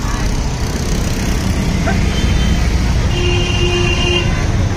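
Steady street traffic of passing motorbikes and other vehicles, with a held higher tone for about a second past the middle.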